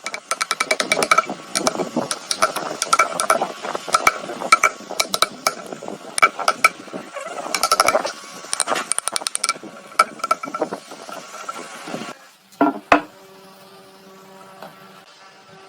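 Woodworking tool work: rapid, irregular clicking and knocking for about twelve seconds. It then drops away to two sharp knocks and a faint steady hum.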